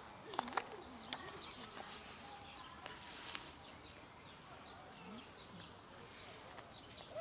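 Stray cats moving about on gravel and being petted: a few sharp clicks and scuffs in the first two seconds, short low cat vocalizations, and faint bird chirps.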